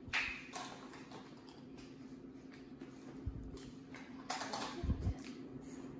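A plastic cooking-oil bottle and measuring cups handled on a table: a sharp click right at the start, a few light knocks and a brief rustle, over a steady low hum.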